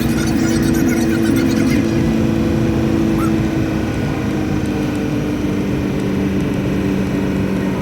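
Box truck engine and road noise heard from inside the cab while driving, a steady low hum whose pitch shifts slightly about two-thirds of the way through.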